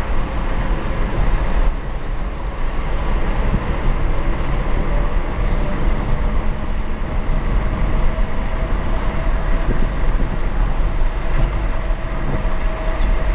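Steady road and engine noise of a car driving, heard from inside the car with the window open.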